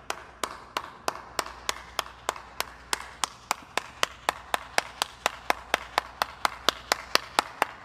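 One person clapping hands in a slow clap that gradually speeds up, from about three claps a second to about five.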